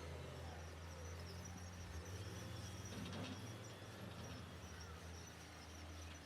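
Diesel engine of heavy earthmoving machinery running steadily at low revs, a low hum, with a few faint clicks about three seconds in.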